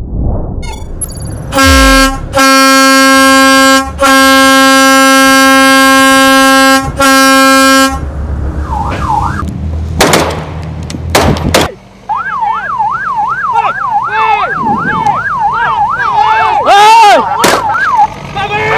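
Patrol vessel's horn sounding several long, loud blasts. A few seconds later comes a fast yelping siren wailing rapidly up and down, over engine rumble. These are warning signals to a fishing boat being ordered to stop.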